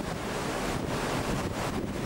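Wind buffeting the microphone over the steady rush of rough, white-capped sea churning into foam beside a moving ship.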